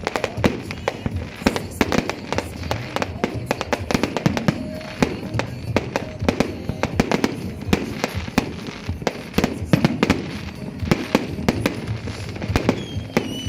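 Many fireworks and firecrackers going off at once: a dense, unbroken run of sharp bangs and crackles, several a second, some louder than the rest.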